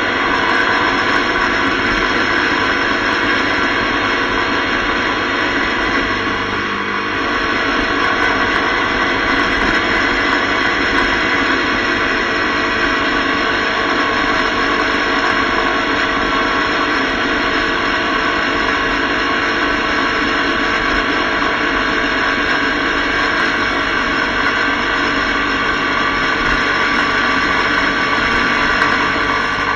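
Motorcycle cruising at steady highway speed, heard from a camera mounted on the bike: loud, steady wind rush and road noise over the engine's even drone, dipping briefly about six seconds in.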